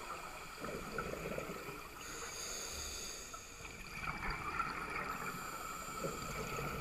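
Muffled underwater sound through a camera housing: a scuba diver's exhaled bubbles gurgling up from the regulator in bursts about a second in, around four seconds in and again near the end, over a steady hiss.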